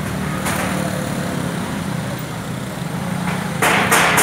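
Road traffic: a car engine runs steadily as vehicles pass close by. A louder rushing noise sets in near the end.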